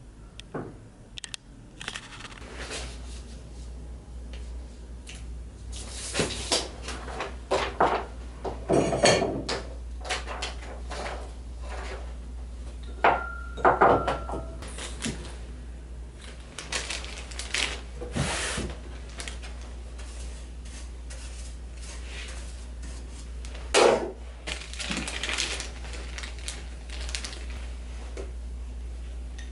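Metal hand tools and other objects clattering and clinking as they are handled, in scattered knocks with one brief ringing note midway, over a steady low hum.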